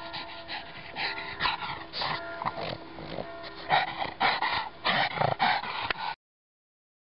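A pug panting in quick, loud breaths close to the microphone after running up a hill, over a faint steady tone. The sound cuts off abruptly about six seconds in.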